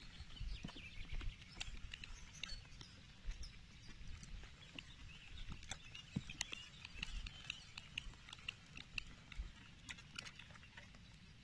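Spinning reel cranked in on a lure retrieve: faint scattered ticks and knocks of the reel and rod handling over a low wind rumble on the phone's microphone.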